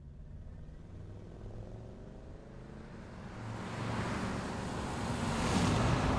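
Car engine and road noise: a low rumble with a faint rising engine note, then a swelling rush as vehicles close in at speed, loudest near the end.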